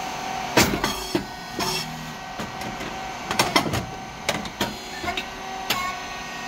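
Rice cake machine running with a steady hum, over which come a string of sharp mechanical clicks and knocks, the loudest about half a second in and a tight cluster about three and a half seconds in.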